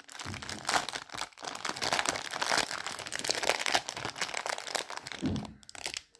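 Clear plastic packaging bag crinkling and rustling as it is handled and opened, dying away shortly before the end.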